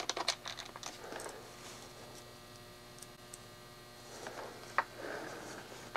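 Faint handling of a plastic FPV goggle casing being fitted back together: a few light clicks near the start and one sharp click near the end.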